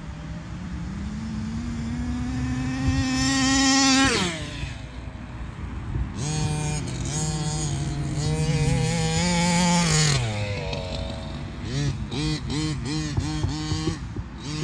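Rovan Baja 5B RC buggy's two-stroke petrol engine revving in two long climbs in pitch, each falling off sharply, about four and ten seconds in, then a quick run of short throttle blips near the end.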